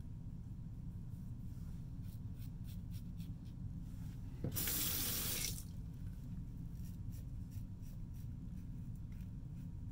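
Sink tap running for about a second, water splashing into the basin, near the middle. Before and after it, faint short scrapes of a Gillette Fatboy double-edge safety razor on lathered stubble.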